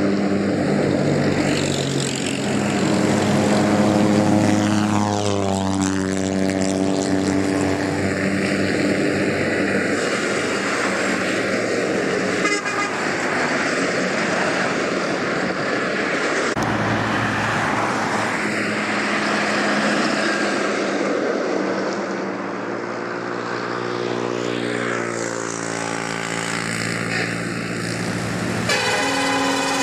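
Heavy diesel buses and trucks driving past in traffic, their engines running, with horns sounding at times. Among them is an Isuzu-built decorated bus.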